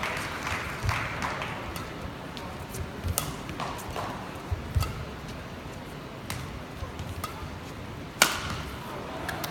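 Badminton rally: rackets hitting the shuttlecock in sharp cracks every second or two, the loudest near the end, with dull thuds of players' footwork on the court.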